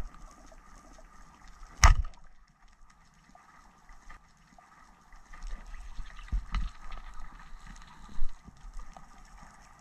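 Band-powered speargun fired underwater, giving one sharp crack about two seconds in. A few dull knocks follow in the second half.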